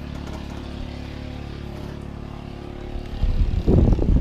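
A motor's steady low hum, then from about three seconds in loud gusts of wind buffeting the microphone with an irregular low rumble.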